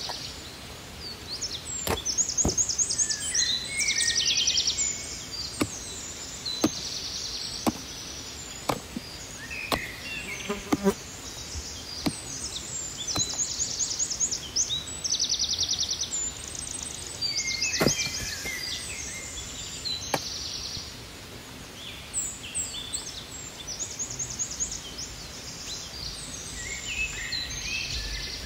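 Forest birds singing, with repeated rapid high trills, over a series of sharp knocks and cracks of dead wood as a rotten fallen log is kicked and broken apart.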